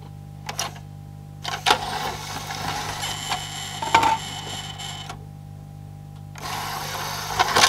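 Belt-driven tray loading mechanism of a CD player built on the Philips CD4 mechanism, its motor whirring the drawer out for about three and a half seconds with a clack as it starts and another near the end. The owner says this eject runs on after the tray hits its end, so the belt slips. After a pause the mechanism runs again briefly, near the end.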